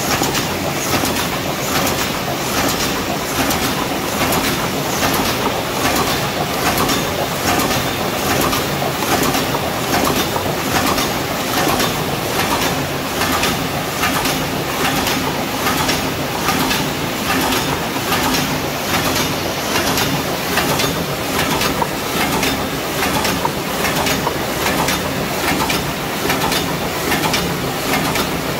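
Paper cup forming machine with a hot-air sealing unit running at production speed: a steady, regular mechanical clatter of its turrets and forming stations, about two strokes a second.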